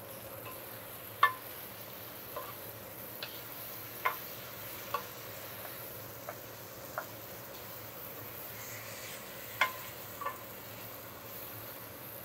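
Wooden spoon stirring chicken curry in a thick All-Clad pot, knocking against the pot in about ten irregular clacks, the loudest about a second in and near the end, over a steady hiss.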